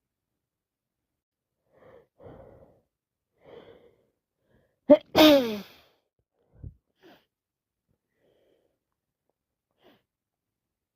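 A woman sneezes once from allergies: a few short breaths in, then a loud sneeze about five seconds in whose voiced part falls in pitch, followed by faint breaths.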